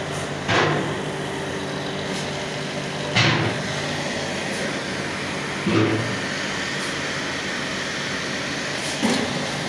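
Steady machine drone with a low hum, broken by four sharp knocks spaced about two and a half seconds apart.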